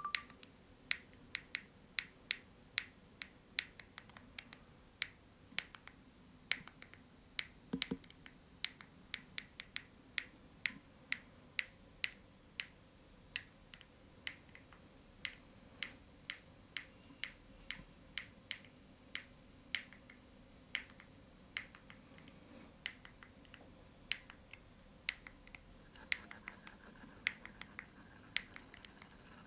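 HO-scale model steam train running along its track: a steady series of sharp light clicks, about two to three a second, over a faint low hum.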